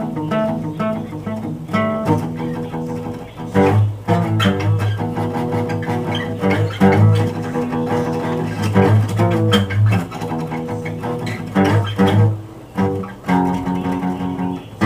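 Two acoustic guitars played together, strumming chords that ring on between strokes.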